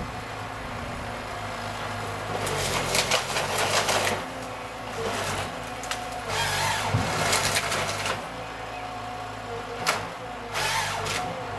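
Wheeled forestry harvester's diesel engine running steadily with a whine from its hydraulics. Its crane-mounted harvester head works a tree in loud, noisy spells of cutting and feeding: one about two and a half seconds in, one around six to eight seconds, and a sharp crack followed by another spell near the end.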